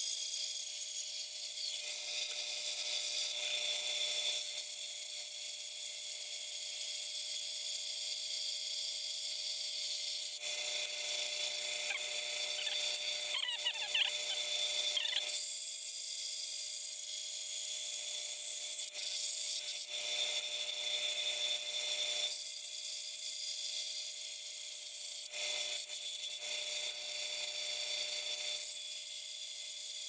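Band saw running with a steady whine while its blade cuts a small, thin workpiece; the hiss of the cut comes and goes several times as the piece is fed into the blade and backed out, with a brief wavering squeal about halfway through.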